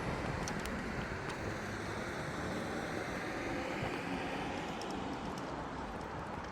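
Road traffic passing on asphalt: a steady hiss of tyre noise that slowly fades as a vehicle drives away.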